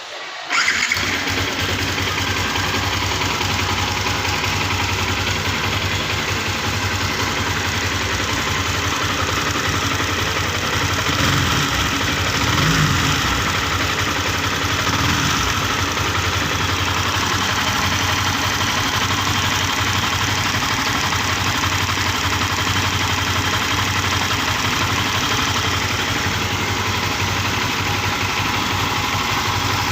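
Yamaha Sniper 150's single-cylinder four-stroke engine starting about half a second in, then idling steadily after a tune-up. The idle picks up slightly for a couple of seconds around the middle.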